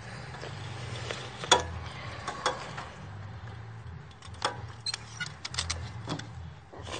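Ratchet strap buckle being worked on a hay load: sharp metallic clicks, a few spread out and then a quick run of them near the end, over a steady low hum.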